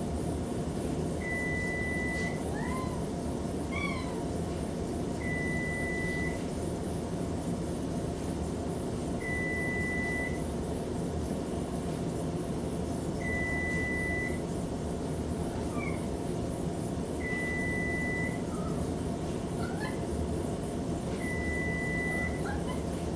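Oven timer beeping: a one-second electronic tone repeated every four seconds, six times. Between beeps a Maine Coon cat answers with a few short squeaky chirps that glide up or down in pitch.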